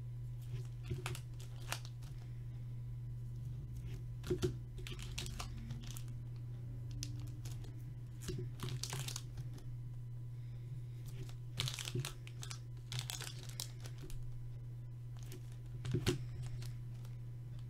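Foil trading-card packs crinkling as they are picked up, marked with a marker and set back down. The rustles come in short scattered bursts over a steady low hum.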